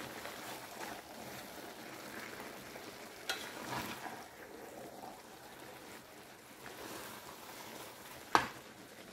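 Greens and meat sizzling in a frying pan while a slotted spatula stirs them, with two sharp clicks of the spatula against the pan: a small one about three seconds in and a louder one near the end.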